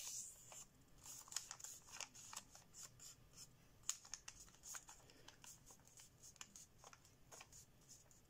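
Faint rustling and crinkling of thin kami origami paper as hands handle it and crease a mountain fold, with scattered short crackles throughout.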